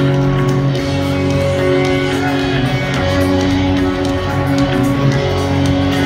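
Live rock band playing through a stadium PA, electric guitar lines over a steady bass, heard from high in the stands.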